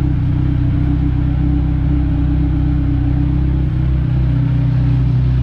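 Kawasaki Ninja 1000's inline-four running steadily at idle through an SC Project titanium slip-on exhaust, a loud, deep, even note.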